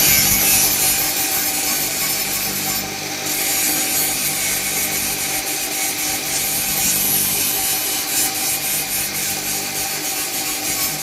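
A power tool running steadily against its work, a continuous rasping noise over a faint steady motor hum.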